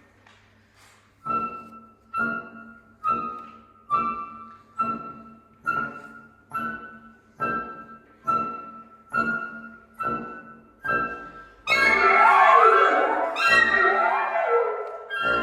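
Mixed wind sextet of flute, oboe, French horn, saxophone, bassoon and clarinet playing contemporary chamber music. A string of about twelve short accented notes comes a little under a second apart, each dying away. About twelve seconds in, the whole ensemble comes in loudly with many overlapping lines that slide in pitch.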